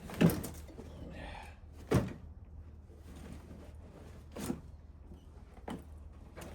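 A few separate knocks and thumps over a low steady hum. The two loudest come near the start and about two seconds in, with softer ones later.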